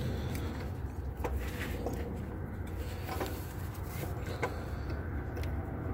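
Starter motor being worked by hand into its mount: scattered light metal knocks and scrapes over a steady low rumble.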